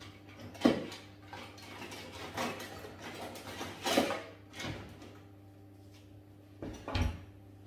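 Kitchen utensils and metal pans clattering in a low kitchen drawer as someone rummages through it: a series of knocks and clinks, the loudest about a second in, and a dull thump near the end, over a faint steady hum.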